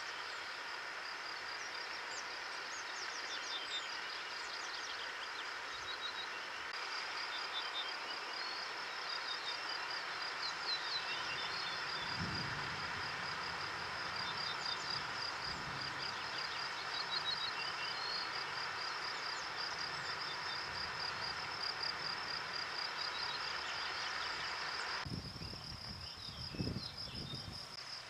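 Insect chorus in the field: a steady, high, pulsing trill with short high chirps scattered over it. There is a soft low thump near the end.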